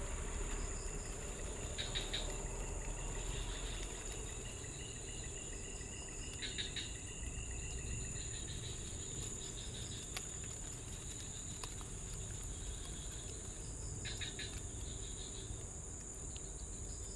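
Steady high-pitched insect chorus, with three short bursts of rapid chirping.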